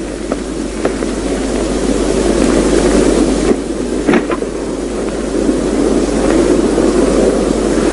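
Steady rushing hum of a jet airliner cabin, with a few light clicks over it, the clearest about four seconds in.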